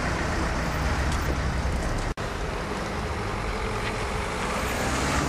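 Street traffic noise: cars running along a town road, steady throughout, with a momentary dropout about two seconds in.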